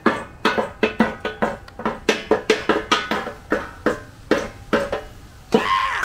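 A child striking a percussion instrument in a fast, uneven run of short ringing notes of varying pitch, about five hits a second.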